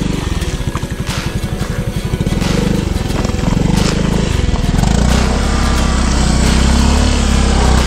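Small automatic scooter engine running under throttle as the scooter is pushed and ridden through mud, getting louder and steadier from about halfway through.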